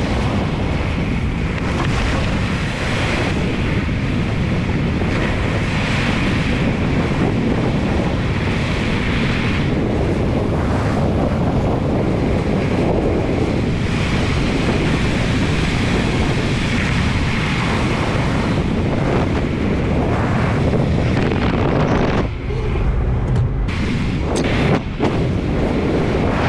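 Steady rush of wind on the microphone of a moving car, mixed with road noise, dipping briefly a few times near the end.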